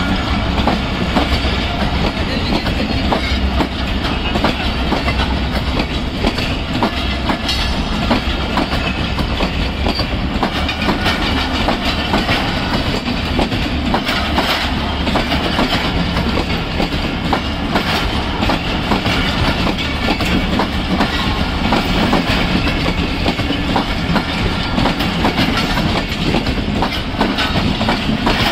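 Karakoram Express passenger train running: a steady rumble and clatter throughout, with frequent sharp clicks of the wheels over the rail joints.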